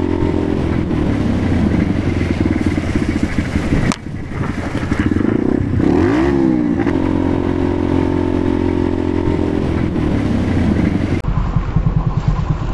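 Motorcycle engine running at a steady pace, heard from the rider's helmet. About six seconds in, the engine note swings briefly up and down. Near the end it drops to a lower, uneven note as the bike slows.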